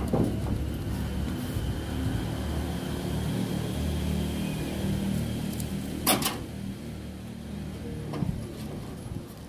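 A steady low rumble, with a sharp knock on the corrugated metal roof about six seconds in and a lighter knock near the end.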